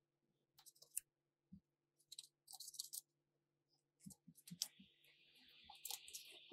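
Paper pages of a photobook being turned by hand: soft rustles and slides with a few light knocks. About five seconds in, a steady fluttering begins as many pages are riffled through at once.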